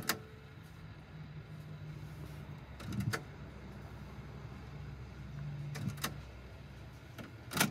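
A Chrysler factory AM/FM cassette deck's loading mechanism trying to take in a cassette: a low motor hum in two spells, with sharp clicks of the mechanism between and after them. The deck is failing to load the tape.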